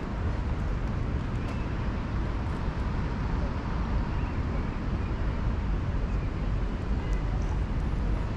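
Steady low rumble of city traffic heard across the park, with a few faint high chirps.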